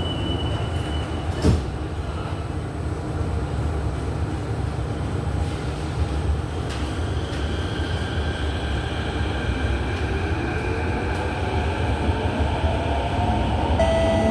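Metro train running through a tunnel, heard from inside the carriage: a steady low rumble with a single knock about 1.5 s in. From about halfway, the electric motors add a whine that slowly rises in pitch. A chime begins just at the end.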